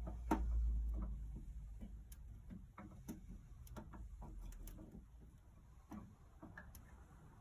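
Small logs burning in a wood-fired pizza oven, crackling with irregular sharp snaps over a low rumble that dies away about halfway through.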